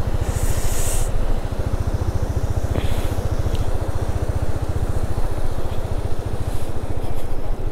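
KTM adventure motorcycle's single-cylinder engine idling with a steady, even pulse. A short hiss sounds about half a second in.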